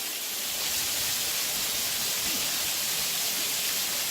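Falling water of a waterfall: a steady, even hiss of splashing water.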